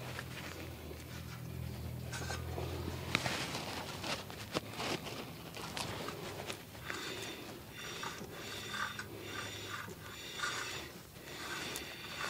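Hands and tools working on a car's rear brake assembly: metal rubbing and scraping with scattered small clicks, as parts are checked for looseness. A low steady hum runs for about the first three seconds, then stops.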